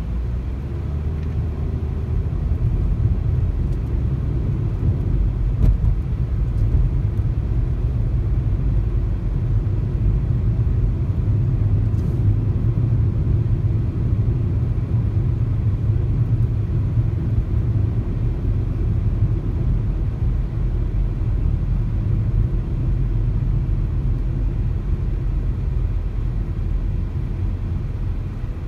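A car driving, a steady low rumble of road and engine noise.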